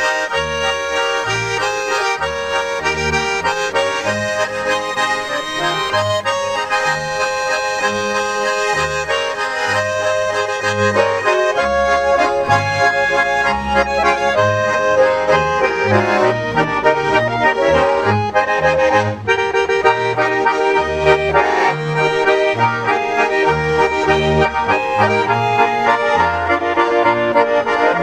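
Accordion music in a traditional folk style, with sustained chords over a steady, bouncing oom-pah bass. It gets somewhat louder about twelve seconds in.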